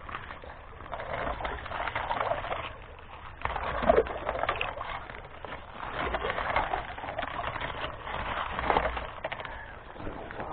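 Magnet stick dragged through shallow creek water and gravel, pebbles scraping and water swishing in about four swells roughly two seconds apart, with a sharp knock about four seconds in.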